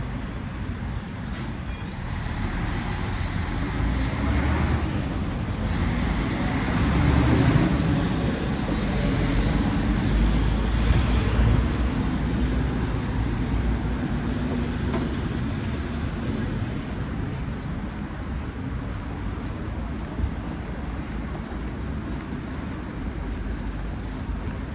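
Road traffic: vehicles passing on a street, building up about two seconds in and loudest in the middle as heavier vehicles go by, then easing back to a steady traffic rumble.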